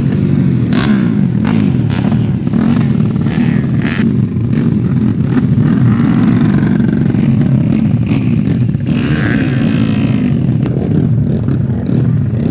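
Four-stroke 130 cc underbone race motorcycles running loudly together, several engines at once with their pitches rising and falling as they rev.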